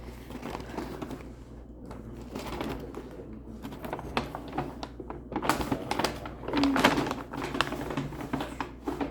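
Irregular rustling and clicking of objects being handled close to the microphone, with the busiest, loudest stretch a little past the middle.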